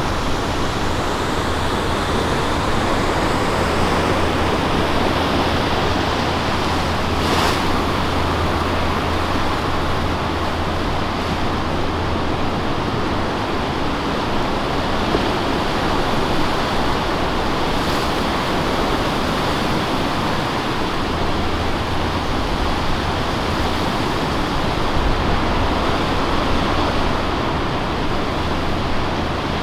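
Steady roar of ocean surf breaking on a river bar.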